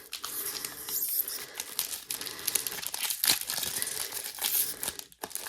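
Trading-card pack wrapper being crinkled and torn open by hand, a continuous run of sharp crackles and rustling; the packet is hard to open.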